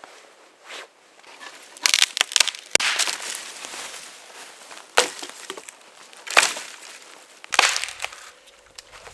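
Dry dead wood cracking and snapping as branches are broken off a fallen dead tree: a quick cluster of sharp cracks about two seconds in with crackling after it, then single loud snaps about five, six and a half and seven and a half seconds in.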